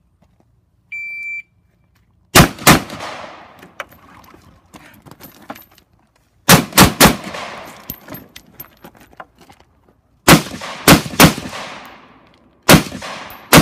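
An electronic shot timer beeps once, a short steady tone. Then rifle shots follow in quick groups of two or three, with pauses of a few seconds between the groups, each shot trailing off in an echo.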